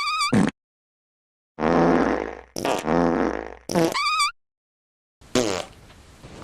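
A string of about five separate farts with short gaps between them: a brief high, wavering squeak at the start, two longer, lower buzzy ones around two and three seconds in, another short high squeak about four seconds in, and a last one starting near the end that trails off.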